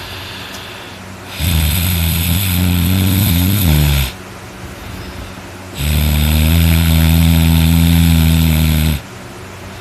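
A person snoring very loud: two long snores of about three seconds each, some four seconds apart, with quieter breathing between. The first wavers in pitch near its end; the second holds a steady pitch.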